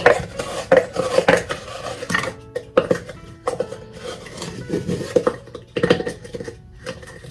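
A utensil clinking and scraping against a bowl as sugar is measured out for a cake glaze. The clatter is busy for the first two seconds or so, then thins to scattered clinks, with faint background music.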